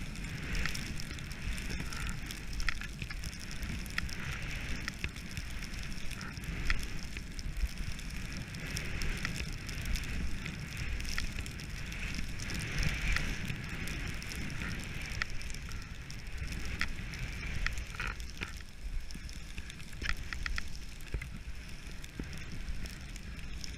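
Skis hissing and scraping over late-season snow on a downhill run, with scattered crackles as the edges bite. Under it, a low rumble of wind on the microphone.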